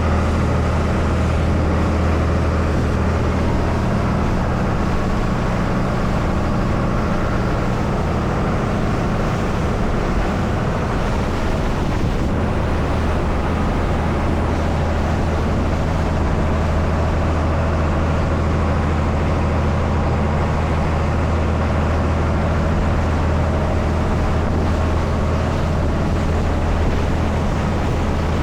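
Fishing boat's engine running steadily, a constant low drone with the hiss of the boat underway over it.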